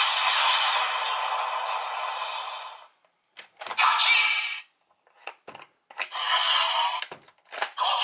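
DX Oneness Raise Buckle toy's small speaker playing electronic music and sound effects, which fade out about three seconds in. Then sharp plastic clicks as the toy's parts are worked, each followed by a short electronic sound from the toy.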